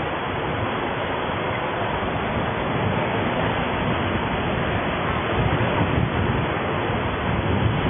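Steady wind noise buffeting the microphone over a low road rumble, from riding along a street.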